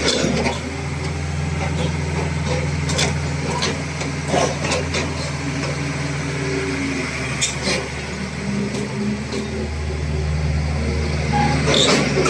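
Caterpillar 330BL hydraulic excavator's six-cylinder diesel engine running steadily, a little louder in the last few seconds, with a few short sharp clicks over it.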